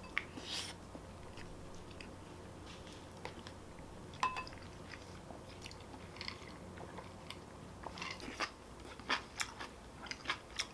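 Close-miked chewing and mouth noises of a person eating: soft wet smacks and small clicks, coming more often in the last few seconds.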